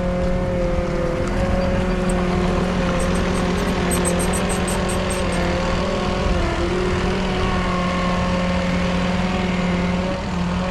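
Engine of a construction loader running steadily while it dumps base material, with a faint rapid ticking between about three and five seconds in.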